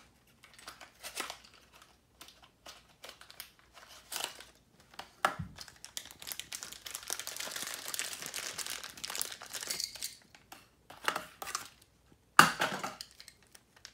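Clear plastic wrapping bag crinkling and rustling as a small die-cast toy car is pulled out of it, with scattered handling clicks, a denser stretch of crinkling in the middle, and one loud sharp crackle near the end.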